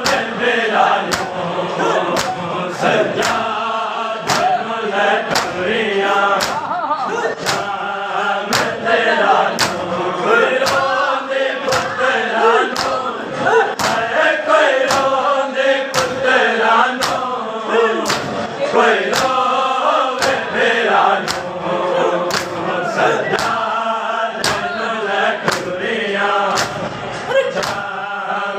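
A large group of men chanting a Shia noha (mourning lament) in unison, while beating their chests (matam) in a steady rhythm of sharp slaps.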